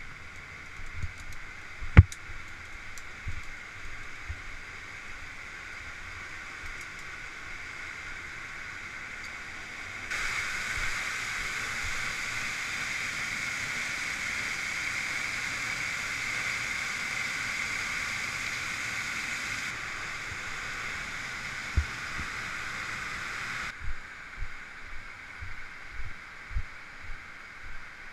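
Steady rush of a waterfall, growing suddenly louder and brighter about ten seconds in, holding for about fourteen seconds, then dropping back. A single sharp click about two seconds in, and scattered low thumps near the end.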